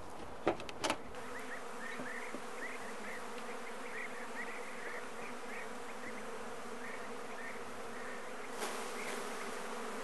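A mass of honeybees buzzing steadily around an opened hive, stirred up as the honey frames are lifted out and shaken. Short high chirps run over the hum, and there are two light knocks near the start.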